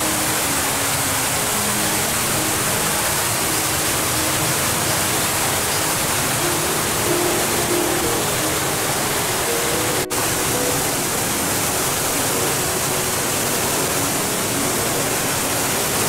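Waterfall cascade of white water rushing steadily down rock steps, with soft background music beneath it. The sound drops out for a moment about ten seconds in.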